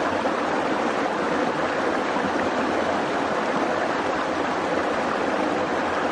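Shallow rocky creek flowing steadily over boulders and small riffles: an even, continuous rush of water.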